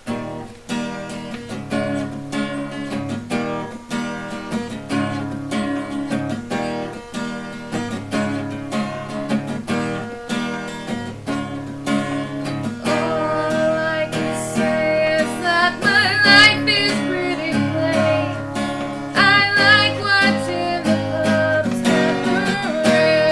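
Acoustic guitar strumming chords, with a voice singing over it from about halfway through.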